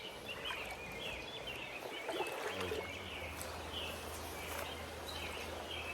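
A small bird chirping over and over in short, quick calls. A low steady hum comes in about two and a half seconds in.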